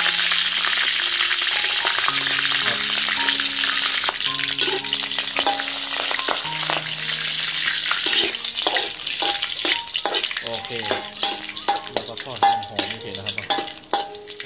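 Dried red chillies and kaffir lime leaves sizzling in hot oil in a wok, the sizzle starting suddenly as they hit the oil. In the second half a spatula stirs them, adding sharp crackles and scrapes against the wok.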